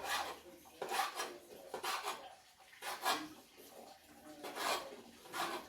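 Repeated short rough scraping strokes, about one a second, each a brief rasp by hand.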